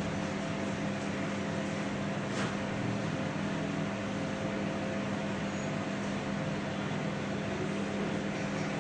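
Microwave oven running while cooking, giving a steady hum with fan noise.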